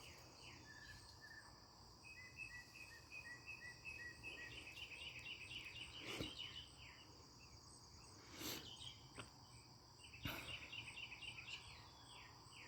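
Northern mockingbird singing faintly in quick runs of repeated short chirps, over a steady high drone of crickets and insects. A few brief soft knocks sound in the middle.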